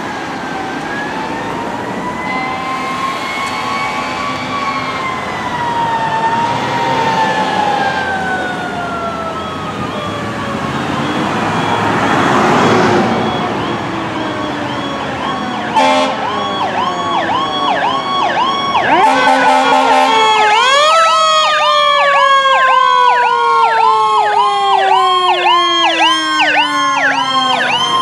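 Fire engine sirens on an emergency response: a slow rising and falling wail for the first half, then a fast repeating yelp from about halfway through. About two-thirds of the way in, a second, lower siren tone rises quickly and then slides slowly down under the yelp.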